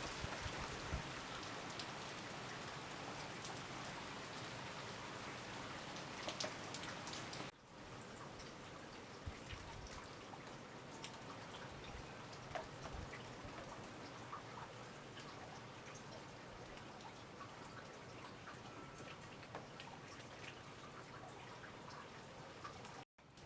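Rain falling steadily, with many separate drops ticking close by. About seven seconds in the sound dips suddenly and comes back a little quieter, and it cuts out briefly near the end.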